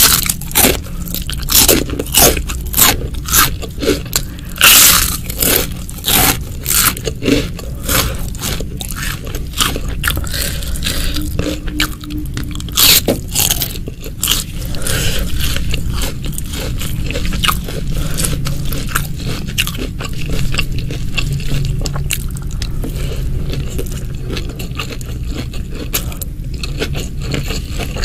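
Close-miked eating sounds: a person biting and chewing crunchy food, with sharp crunches coming every half second or so in the first half, then a denser run of chewing.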